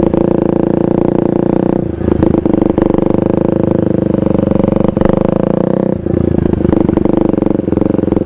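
KTM 390 Duke's single-cylinder engine running through a KO Lightning aftermarket exhaust, held at a steady pitch with short breaks in the note about two and six seconds in.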